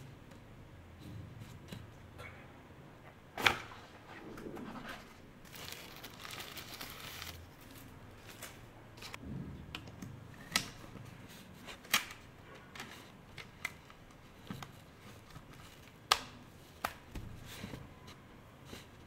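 Close-miked handling of an Infinix Hot 50i smartphone as a clear plastic case is fitted onto it. There is a string of sharp clicks and snaps as the case is pressed on, with a rustling scrape partway through.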